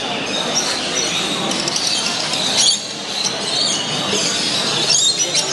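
Many caged canaries, finches and budgerigars chirping, trilling and squawking all at once, a constant loud din of overlapping high calls: "a hell of a noise".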